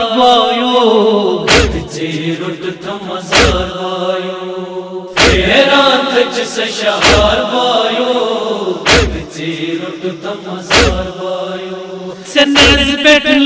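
A crowd of men chanting a Kashmiri noha, a Shia lament, in unison. A sharp slap of hands beating chests (matam) falls in time about every two seconds.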